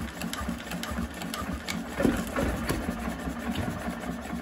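1975 SABB single-cylinder marine diesel running on its first test run, a fast, even mechanical clatter of firing strokes with a heavier knock about two seconds in.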